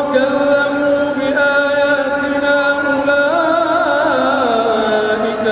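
Melodic Quran recitation by a solo male voice: one long phrase held on a steady note, then rising into quavering ornamental turns and sliding down to a lower note about four seconds in.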